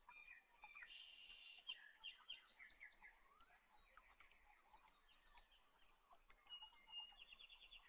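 Faint birds chirping in the background: short repeated notes and quick trills, with a brighter trill near the end.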